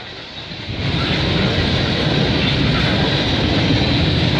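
Freight train's cars rolling past: a steady rumble and rail noise that swells up about a second in and then holds.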